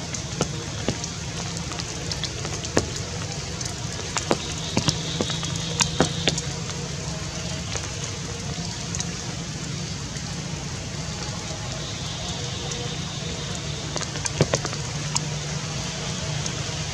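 Steady outdoor background hiss with a low hum under it, broken by scattered sharp clicks and ticks, several close together about five seconds in and again near the end.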